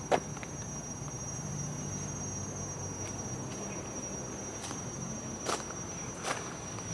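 Steady high-pitched drone of tropical forest insects, held unbroken throughout. A few short crunches cut in over it, the loudest just after the start and two more near the end.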